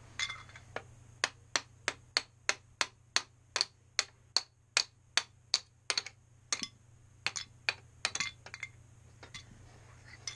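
Plastic toy mallet tapping the plastic ice blocks of a Don't Break the Ice game: a run of sharp clicks, about three a second, then a few slower, irregular taps near the end.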